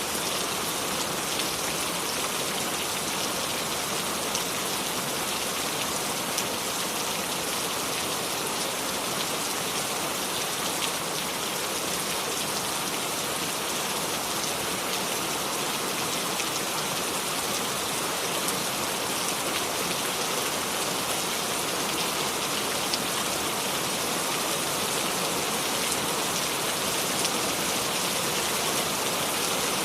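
Steady rain falling and pattering on surfaces, with scattered small drop ticks and no thunder.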